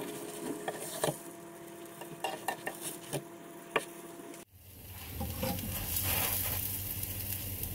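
Potato-and-cheese patties sizzling in oil in a nonstick frying pan, with sharp taps and scrapes of a slotted spatula and a fork against the pan as the patties are moved and turned. About halfway through the tapping stops and a steadier sizzle carries on.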